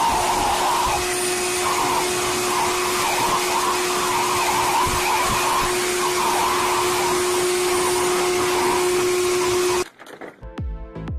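Electric blower motor running steadily with a constant hum, cutting off abruptly near the end. Electronic music with a beat starts right after.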